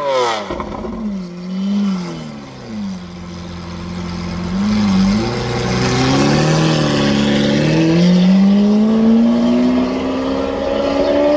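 Straight-piped, decatted V12 of a DMC-tuned Lamborghini Aventador LP900-4 Molto Veloce: the revs fall back and settle low with a couple of small throttle blips, then the car pulls away with the engine pitch rising slowly and steadily.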